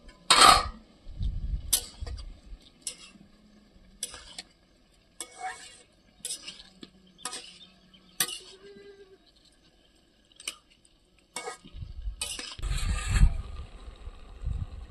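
Metal utensil clinking and scraping against a cooking pot, about a dozen irregular strikes spread across several seconds. A low rumble comes in near the end.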